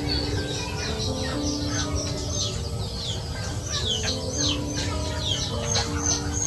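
A flock of young chickens calling as they feed, with many quick, high, falling peeps overlapping.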